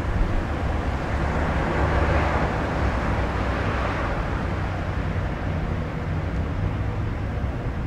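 Street traffic: a steady low rumble, with a car driving past that swells and fades over the first few seconds.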